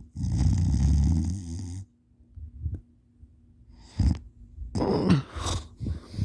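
A sleeping person snoring: one long, loud snore lasting under two seconds, then after a pause a run of short, uneven snorts and gasping breaths near the end.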